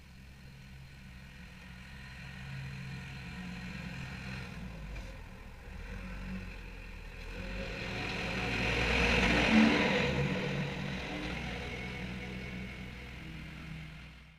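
Deutz 6206 tractor's air-cooled four-cylinder diesel running under load as it mows with a Fella mower, passing by: the steady engine drone grows louder, peaks about nine seconds in, then fades as the tractor moves off across the field.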